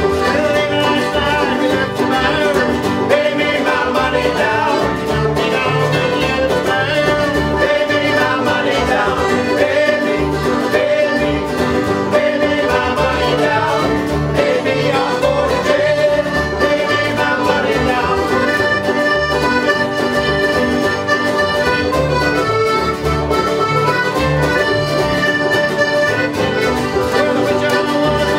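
Folk band music led by accordion, with guitar and a steady beat.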